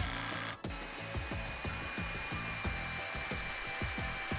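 Power drill driving pocket screws, running steadily with a fast repeating ratcheting beat, several strokes a second, and a brief break about half a second in.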